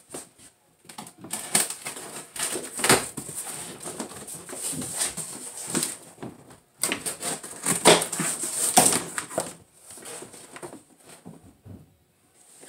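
Cardboard being handled: a boxed kit sliding and scraping out of a cardboard shipping carton, with the carton's flaps rubbing and crinkling, in irregular bursts that die down about ten seconds in.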